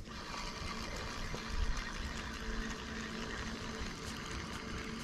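Spinning reel being cranked to retrieve a cast spinner lure, a steady mechanical whir.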